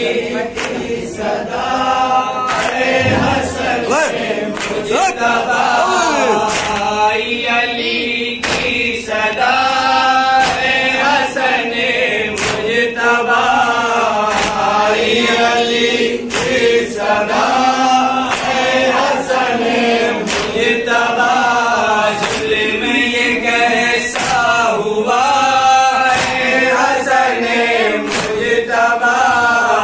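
Men's voices reciting a noha, a Shia mourning lament, in unison chant through a microphone and PA. Regular sharp slaps of matam, palms beating on chests, keep time about once a second.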